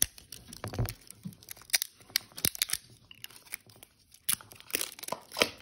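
Crinkly toy wrapping being peeled and torn off a small L.O.L. Surprise capsule by hand: an irregular run of sharp crackles and short rips.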